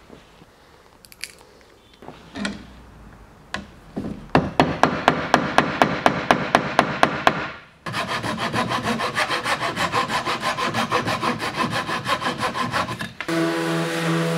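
A few scattered clicks and knocks, then a thin-bladed flush-cut hand saw trimming wooden plugs flush with a walnut surface in quick, even strokes, about four or five a second, in two runs with a brief pause between them. Near the end a Festool random-orbit sander starts and runs with a steady hum.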